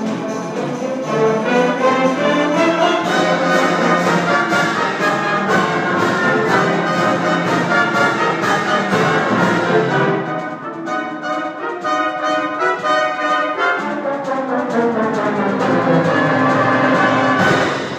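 Concert wind band playing, with the brass prominent. The full ensemble thins out about ten seconds in, then swells again before dropping away near the end.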